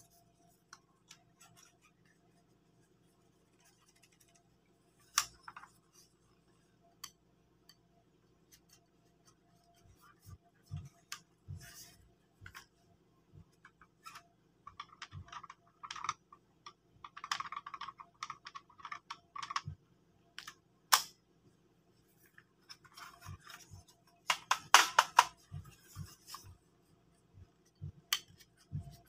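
Clicks, knocks and rattles of a Kyocera FS-6525 laser printer drum unit's plastic parts being handled and worked with a screwdriver during disassembly. The sounds come in short spells of scraping and rattling near the middle and a louder cluster a few seconds before the end.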